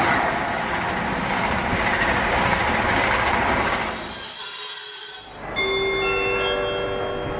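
Train sound effect: a loud rushing, rumbling train noise for about four seconds that dips out briefly, followed by several steady high tones that come in one after another.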